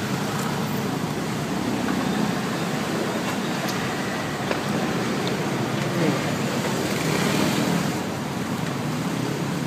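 Steady hum of road traffic, with faint voices now and then.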